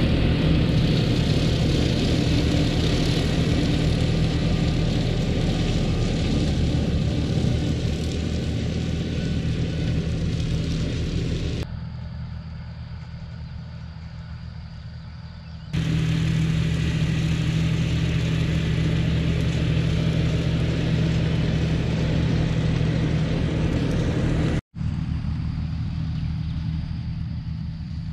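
John Deere 5075E tractor's diesel engine running steadily while pulling an E12 flex-wing rotary mower through pasture. About twelve seconds in, the sound goes quieter for about four seconds, then comes back at full level. It breaks off for an instant near the end.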